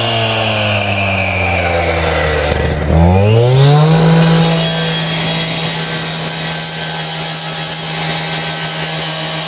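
Two-stroke gas-powered rotary cut-off saw (rescue saw) running. Its engine speed sags for about three seconds, then it is throttled sharply back up and held at a steady high speed.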